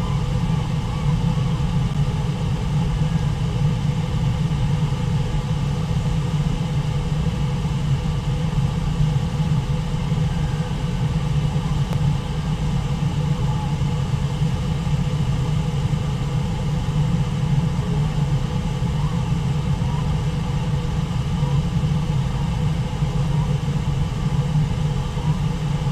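Steady low rumble of rushing water from Brooks Falls and the rapids below it, unbroken throughout.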